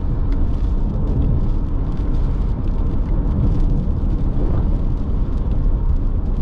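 Steady low road and wind rumble inside the cabin of a Toyota RAV4 driving at speed through a windy storm.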